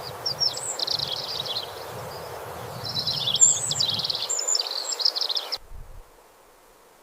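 Small birds chirping and twittering in two quick bursts of high notes over a steady outdoor background, cutting off abruptly about five and a half seconds in.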